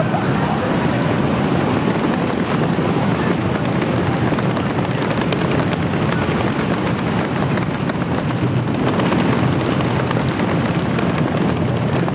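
A large audience making a rainstorm with their hands and feet: a dense, steady patter of many small claps, slaps and stomps imitating heavy rain.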